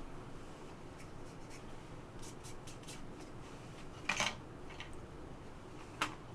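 Faint handling noise: a few short scrapes and rustles, the loudest a little after four seconds in and another near the end.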